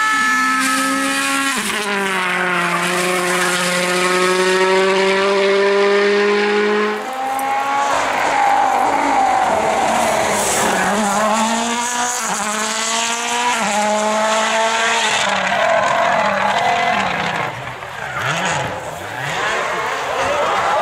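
Turbocharged four-cylinder World Rally Car engines at full throttle, the engine note climbing and then dropping sharply at upshifts about a second and a half and seven seconds in, with tyres squealing as the cars are driven hard through corners on tarmac.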